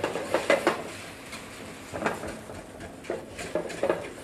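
Wire whisk scraping and clinking against the bottom of a metal sauté pan in irregular strokes, over the faint hiss of boiling marinade: the pan is being deglazed as the marinade reduces.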